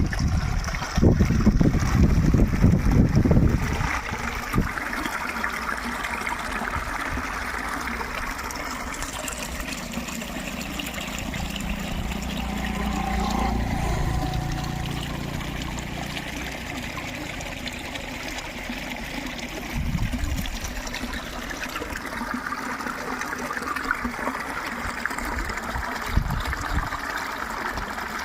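Water trickling steadily. Heavy low rumbling covers the first few seconds, and a low hum swells and fades about halfway through.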